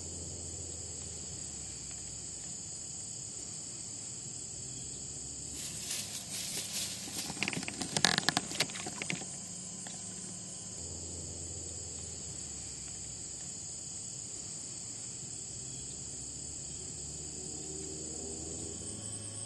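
Steady high-pitched chorus of late-summer insects such as crickets trilling. About six seconds in comes a few-second burst of rustling and knocks, the loudest part, before the chorus carries on alone.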